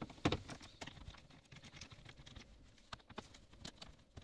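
Irregular light clicks and taps of a screwdriver working the T20 Torx screws of a plastic dashboard console, the loudest click near the start.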